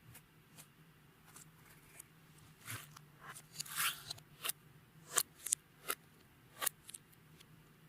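Clear slime being worked by hand, giving a run of irregular sharp sticky clicks and pops, with a short crackling stretch a little past the middle.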